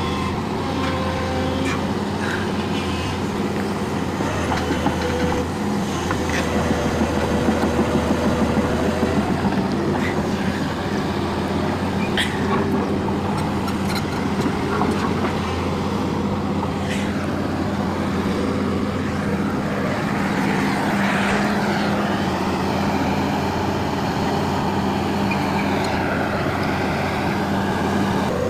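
A heavy vehicle's engine running steadily, with a few short knocks.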